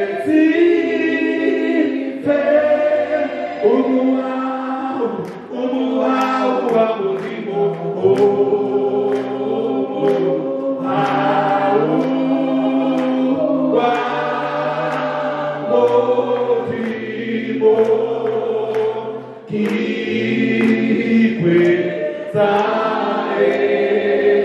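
A choir of voices singing a gospel song together, in sustained phrases that change pitch every second or two.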